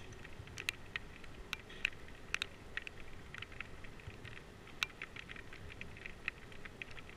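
Raindrops tapping on a GoPro camera housing: light, irregular ticks, a few a second, over a faint low rumble.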